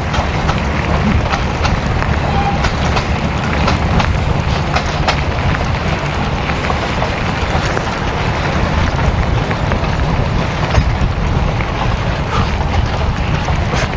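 A moving vehicle's steady rumble with wind buffeting the microphone, dotted with short rattles and knocks.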